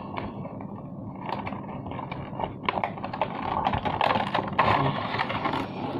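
A cardboard toy box being opened and its plastic blister tray slid out, with rustling, crinkling and many small clicks, busier in the second half.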